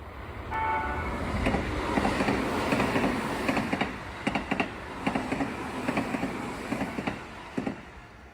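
Electric commuter train giving a short horn blast about half a second in, then passing, its wheels clacking over the rail joints. The noise fades away near the end.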